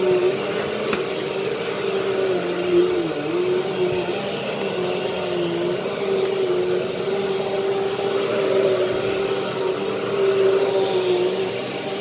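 Upright vacuum cleaner running with a steady motor hum and a high whine, its pitch dipping briefly a few times.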